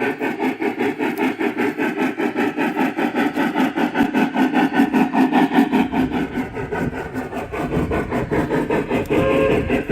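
Steam-locomotive sound from the TCS WOW501-Steam sound decoder in a battery-converted Lionel G-scale 4-4-2 Atlantic: even, rapid chuffing at about four to five beats a second, with a low rumble joining about six seconds in and a whistle sounding near the end.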